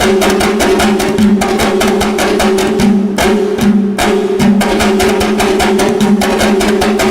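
Music with fast, dense drumming over a steady low held tone.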